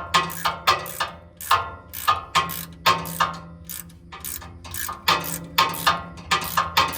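Ratchet wrench clicking in short back-and-forth strokes, working bolts loose on a car's starter.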